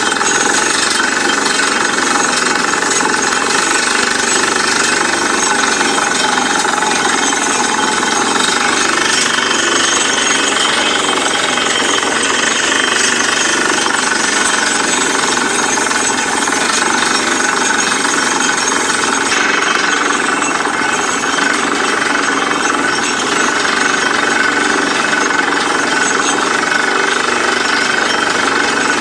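Truck-mounted borewell drilling rig running during drilling, a loud, steady mechanical clatter with hiss. The highest hiss eases slightly about two-thirds of the way through.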